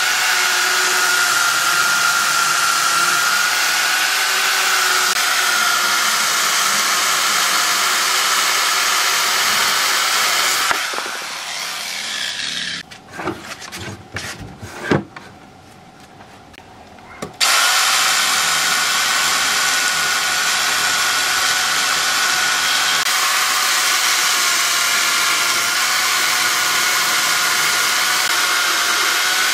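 Corded electric chainsaw cutting a rotting log, its motor running with a steady whine. It stops about eleven seconds in; a few knocks follow while the log is handled, then the saw starts again abruptly about seventeen seconds in and cuts on.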